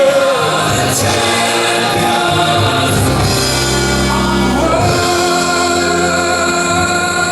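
Music with singing voices holding long notes, the pitch sliding up to a new held note partway through.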